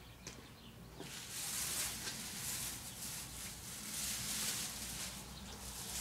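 Thin plastic masking film crinkling and rustling as it is grabbed and pulled down along the side of the motorhome. It starts about a second in and swells and fades in several waves.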